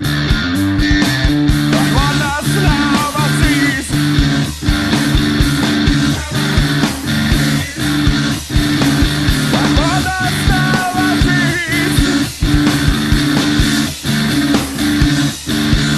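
Heavy rock music: a low riff held over regular drum hits, with a higher line that bends up and down in pitch twice.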